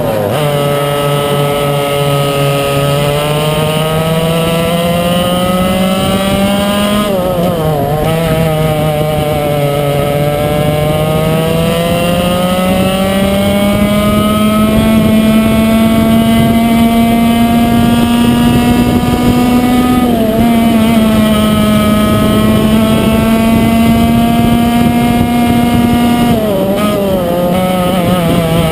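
Yamaha KT100 two-stroke kart engine at race speed, heard from on board the kart. Its pitch climbs steadily along the straights and drops sharply as the driver lifts for corners, about a quarter of the way in, around two-thirds of the way, and again near the end.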